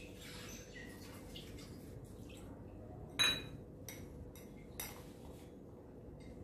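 A metal utensil clinks sharply against a glass mixing bowl of semolina batter, once with a short ring about three seconds in and again, more softly, near five seconds.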